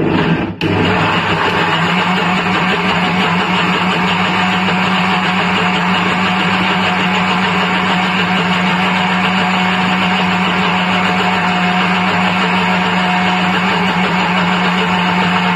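Kenstar electric mixer grinder switched on and grinding wet wheat in its steel jar, the motor running with a steady hum. It starts with a brief stutter in the first half-second, then runs evenly.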